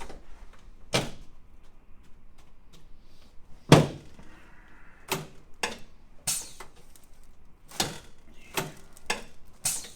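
Irregular sharp clacks and knocks from a chiropractic treatment on an adjusting table, about nine in all, the loudest a little under four seconds in.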